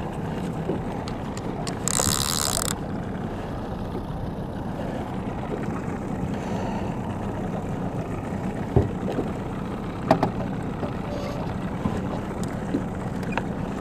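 Small outboard motor running steadily at trolling speed. A brief high buzz comes about two seconds in, and a few sharp knocks follow later.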